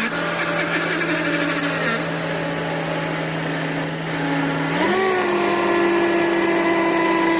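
An engine running at a steady speed, which picks up a little about five seconds in and holds at the higher speed.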